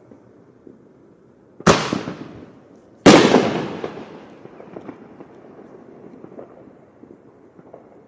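Two loud firework bangs about a second and a half apart, each trailing off in an echo for about a second; the second is the louder.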